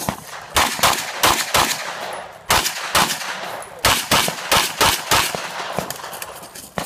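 Open-division race pistol fired in rapid pairs and strings, sharp cracks a fraction of a second apart, with short pauses between strings as the shooter moves to new targets.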